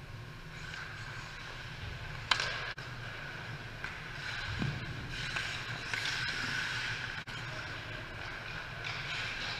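Ice hockey skates scraping and hissing on rink ice, over a steady low hum. A single sharp knock about two seconds in is the loudest sound.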